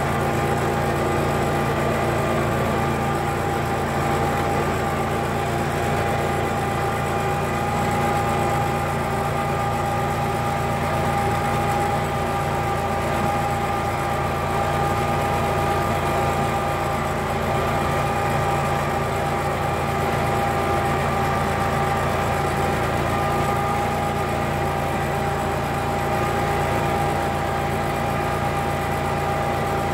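Simplicity Legacy 4x4 garden tractor's Kohler 27 horsepower V-twin gas engine running steadily, with a steady whine above the engine note.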